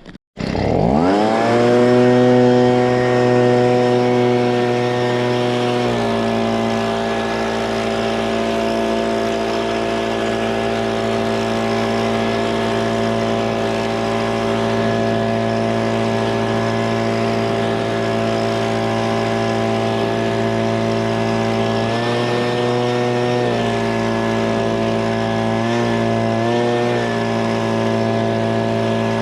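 Gas-powered leaf blower starting up and revving to high speed, then running steady. Its pitch dips briefly a few times near the end as the throttle eases.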